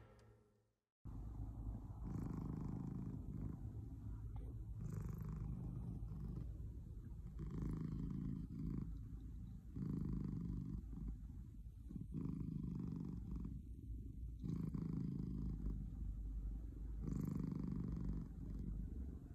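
Domestic cat purring close to the microphone. The low rumble starts about a second in and swells and eases with each breath, roughly every two and a half seconds.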